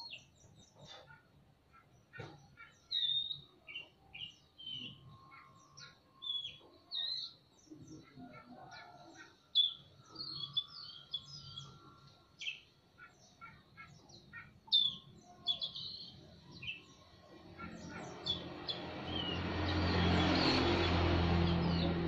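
Oriental magpie-robin singing: a quick run of short, varied whistles and chirps. Over the last few seconds a rush of noise with a low hum swells up beneath the song and becomes the loudest sound.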